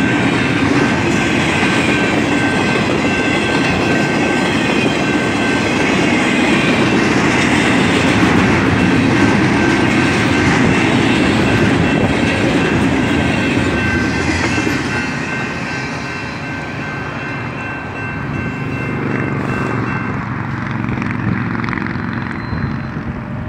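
BNSF double-stack intermodal container train rolling past: a dense, steady rumble with the clatter of wheels over the rails, and a thin, steady high tone running through it. About two-thirds of the way in the noise eases off as the last cars go by and the train pulls away.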